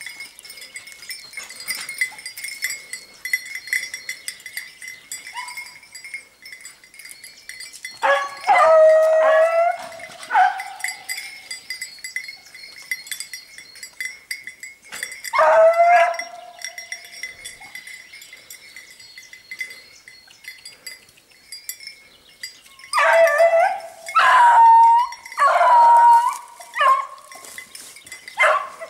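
Beagles baying on a hare's scent trail: long drawn cries that fall in pitch. A burst comes about eight seconds in, another around fifteen seconds, and a run of four or five cries near the end.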